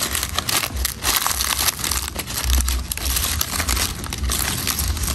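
Fresh and dried banana leaves crackling and rustling as hands fold and press them around a food parcel being wrapped for steaming, a dense run of quick crackles with soft low thuds of hands pressing the bundle.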